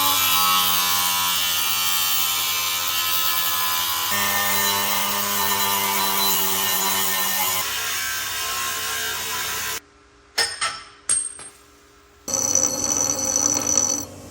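Electric power tool cutting metal, running steadily for about ten seconds with its motor pitch shifting as it bites. It stops suddenly, is triggered in two short bursts, then runs again for a couple of seconds near the end.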